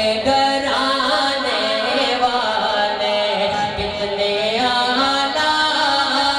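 A man singing a naat into a microphone, drawing out long, gliding melodic notes without pause.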